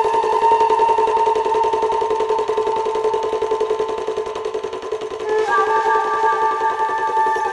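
Background music of steady held notes that change to a new chord about five and a half seconds in.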